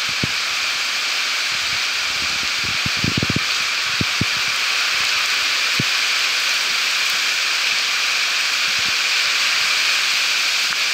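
Heavy rain pouring down in a steady, loud hiss. A few short, soft knocks sound over it, with a cluster about three seconds in.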